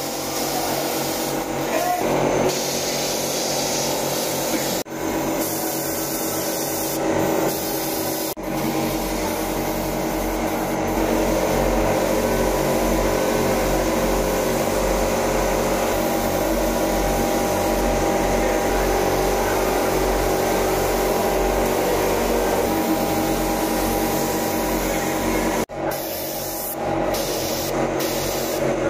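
Small gravity-feed spray gun hissing steadily as it sprays body paint onto skin, with a low hum underneath. The hiss breaks off and restarts a few times.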